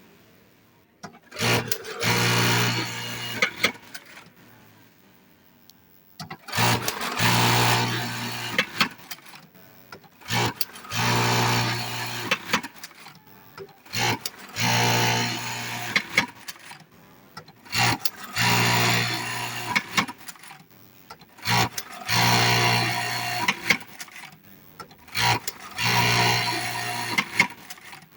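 Industrial eyelet buttonhole sewing machine running in repeated cycles of about two seconds each, about seven times, a steady motor hum with rapid stitching that starts and stops abruptly, with clicks between cycles.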